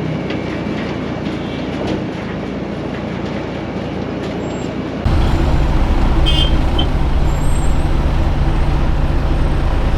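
Heavy diesel machinery running steadily at a road-milling job. About halfway through, the sound steps up abruptly into a louder, deeper diesel engine drone. Two short high chirps follow a second or so later.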